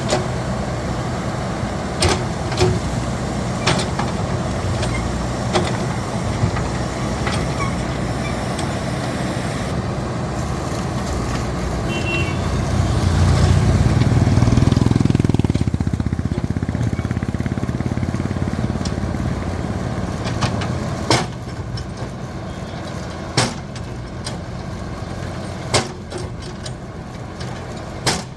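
Diesel engine of a JCB backhoe loader running steadily, swelling louder for a few seconds about halfway through, with several sharp knocks at intervals.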